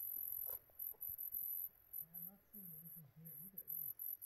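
Crickets chirping: a thin, very high trill that comes and goes in short, uneven pulses. A faint low voice murmurs in the middle.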